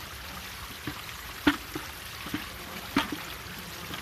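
Stream water running steadily, with a handful of separate louder plops and trickles, the strongest about a second and a half in and again about three seconds in.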